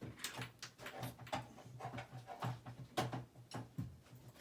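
A quick, irregular run of sharp clicks and rustles from small objects being handled.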